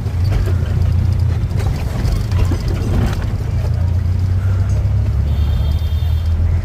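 Steady low rumble of a car's engine and road noise while driving in traffic, with a short high-pitched tone like a distant horn about five seconds in.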